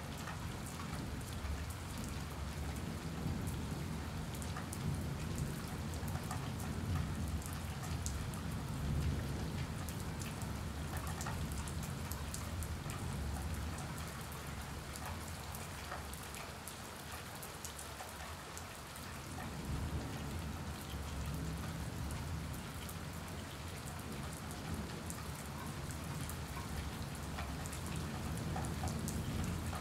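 Steady rain falling on a wet concrete floor, with fine drop ticks over a low rumble that eases for a few seconds midway.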